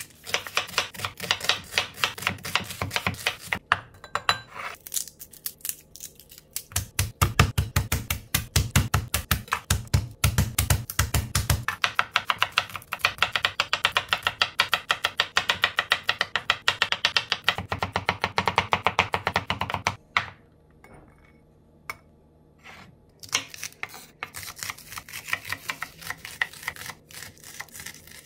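Chef's knife chopping on a wooden cutting board through onion, garlic and spring onions: fast runs of sharp taps, several a second, with the heaviest, deepest chops about seven to twelve seconds in and a sparser stretch of single taps a little after twenty seconds.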